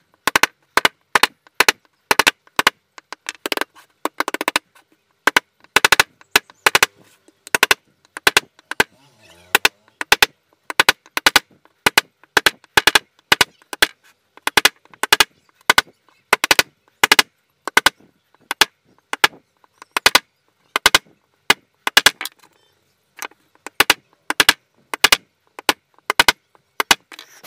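Hammer striking a wooden dowel again and again, sharp knocks at about three a second in runs with short pauses. It is seating a new heating element firmly into an electric iron's soleplate.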